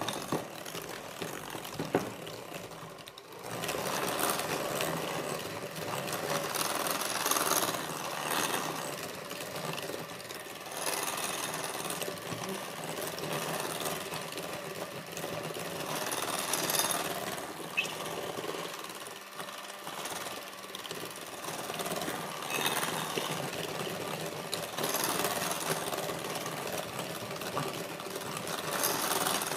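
Cordless KitchenAid electric hand mixer running steadily, its beaters creaming butter and brown sugar until light and fluffy. The level wavers as the beaters move through the mixture, after a brief dip about three seconds in.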